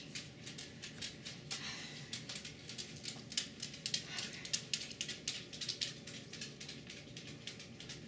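A flock of small backyard birds calling at the feeders: a dense scatter of short, high chips, busiest around the middle.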